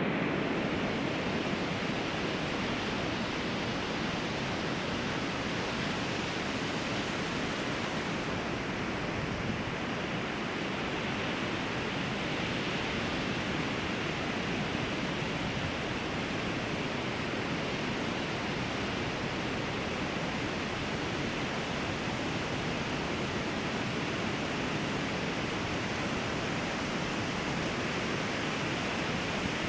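Ocean surf on a beach: a steady, continuous wash of wave noise with no distinct single breakers standing out.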